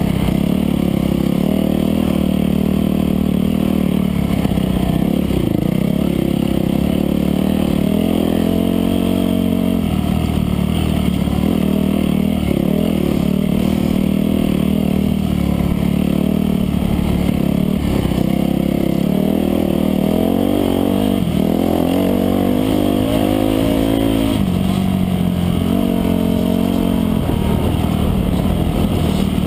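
Dirt bike engine heard up close from the bike itself, revving up and down repeatedly with the throttle and gear changes while riding a rough dirt trail.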